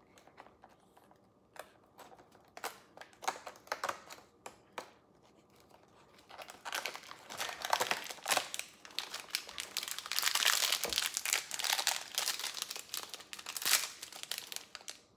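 Packaging of a blind-packed Disney Doorables figure being torn and crinkled open by hand: scattered light crackles at first, then denser, louder crinkling through the second half.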